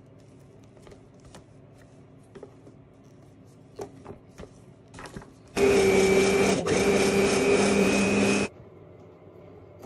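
Faint scraping and tapping of a spatula in a mixing bowl as cocoa powder is folded into batter, then an electric mixer with twin beaters starts about five and a half seconds in, runs steadily through the batter for about three seconds and stops.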